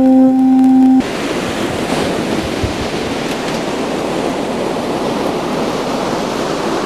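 An alto saxophone holds one steady note that cuts off abruptly about a second in. Then comes the steady rush of ocean surf breaking on a beach.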